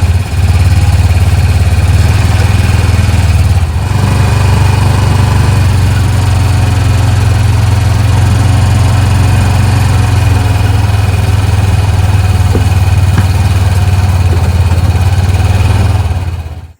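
An engine running steadily and loud, with a slight dip about four seconds in; it cuts off abruptly near the end.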